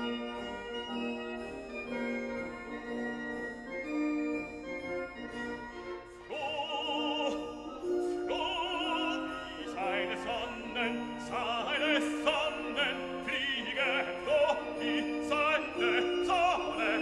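Background classical music: an instrumental accompaniment of held notes, joined about six seconds in by an operatic singer with strong vibrato.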